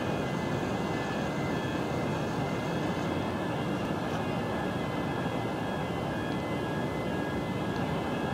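Grab ship unloader crane's machinery running with a steady drone and several steady high tones above it.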